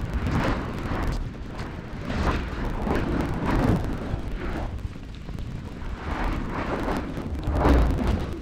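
Wind buffeting the microphone of a camera moving along a street: an uneven low rumble that swells and fades in gusts every second or so.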